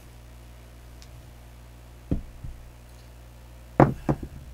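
Craps dice being thrown: a single knock about two seconds in, then a sharp clatter of two or three quick knocks near the end as the dice land on the felt and bounce off the table's back wall.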